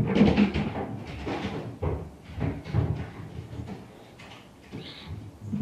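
Irregular muffled thuds and bumps coming through the ceiling from the apartment above, where a dog is jumping and running about on the floor.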